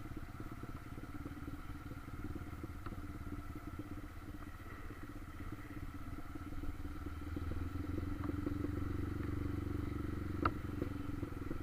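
Motorcycle engine running on the move, getting louder about eight seconds in. There is a brief sharp knock near the end.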